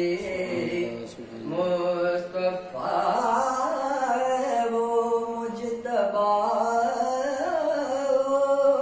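A man singing a Persian Sufi devotional poem (Farsi kalaam) in long, held, ornamented notes, the phrases broken by short breaths.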